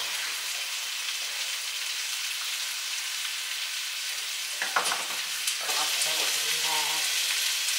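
Food sizzling steadily in a frying pan on a gas hob, with a single knock about five seconds in.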